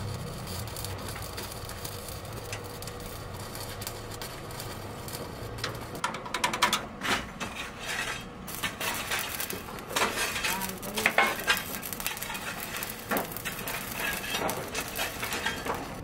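Stick welding on steel reinforcing bar: a continuous crackling sizzle from the arc, with sharper clicks and metallic clinks that are busiest between about six and twelve seconds in.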